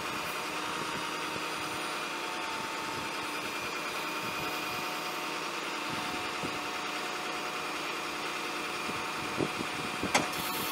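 Ford 6.0L V8 turbo diesel engine idling steadily, with two short sharp clicks near the end.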